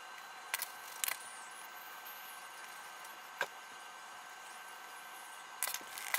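Several sharp clicks of wooden pencils being put down on and picked up from a desk, over a faint steady hiss.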